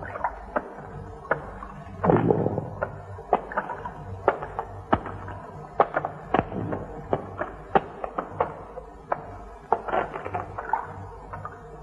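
Irregular sharp clicks and pops, one or two a second, over a faint low hum: crackle on a worn old film soundtrack. A short rushing noise comes about two seconds in.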